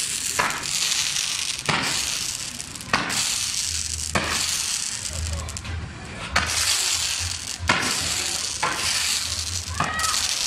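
Fireworks on a burning torito, a bull-shaped pyrotechnic frame, hissing steadily as they spray sparks, with sharp bangs about once a second.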